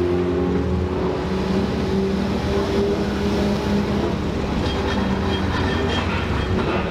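Car engines running at steady low revs over a deep rumble, their held tones shifting in pitch about a second in.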